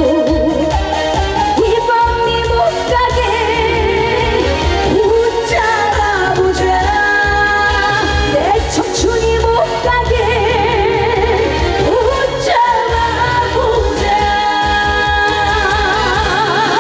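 Live trot song played by a band, with a voice singing long held notes with heavy vibrato over a steady beat.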